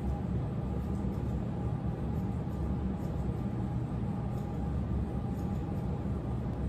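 Grooming scissors snipping through a bichon frise's curly coat, as faint scattered clicks over a steady low background hum.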